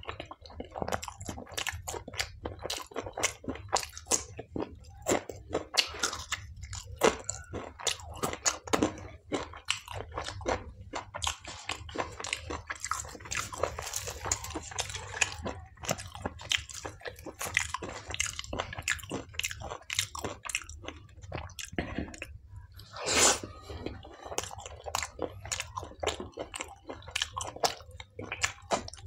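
Close-miked eating: a person chewing and biting into palak paneer with butter naan and salad, with wet mouth clicks and crunchy bites throughout and one louder crunch about three-quarters of the way through.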